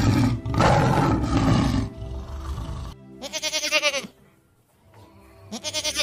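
A tiger roars for about two seconds, then a goat bleats twice in wavering calls, over background music.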